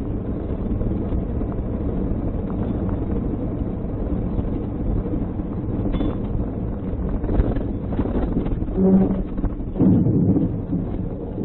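Steady road and wind rumble from inside a moving car. About nine and ten seconds in, louder surges of noise come as the loaded log truck ahead crashes off the road.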